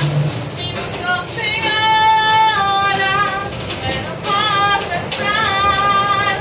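A woman singing, holding a few long notes, some with a slight waver.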